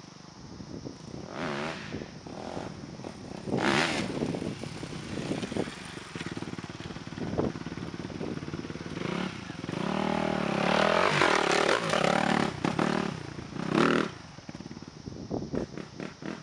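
Suzuki RM-Z250 dirt bike's single-cylinder four-stroke engine revving hard as it rides the jumps, rising and falling in pitch. There is a sharp rev about four seconds in, a longer run of climbing and dropping revs in the middle, and another sharp rev a couple of seconds before the end.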